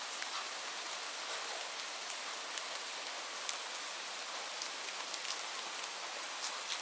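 Steady rain falling on leaves: an even hiss with many scattered, sharp drop ticks.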